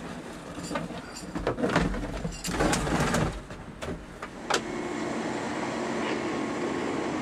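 Knocks and clatter of equipment being handled at the cabin door of a rail track machine. About four and a half seconds in, a sharp click gives way to the steady hum of the Plasser & Theurer SFM Compact ballast regulating and stabilising machine running, with a few held tones.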